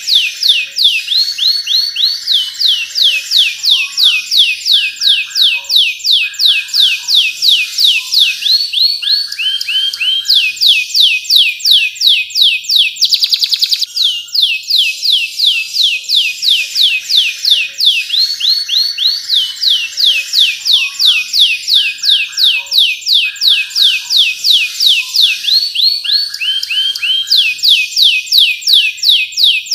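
Domestic canary singing a long, loud song: fast runs of high falling whistled notes, about four to five a second, broken by lower buzzy rolls and a rapid trill about halfway through.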